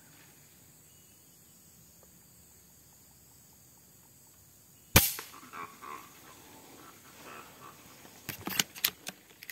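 A single sharp shot from an FX Impact M3 PCP air rifle about five seconds in, followed by a few seconds of softer scattered noises and a quick run of sharp clacks near the end.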